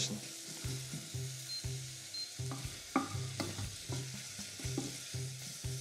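Diced asparagus, leek and potato sweating in butter in a pot, a gentle sizzle, with a spoon stirring and scraping the pot in short strokes a few times a second. It is a sweat rather than a fry: the vegetables are cooked only to soften them, without browning.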